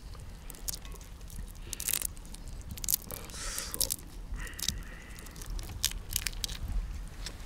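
Raw shrimp being peeled by hand: the shell crackling and tearing away from the flesh in a string of small clicks and rustles.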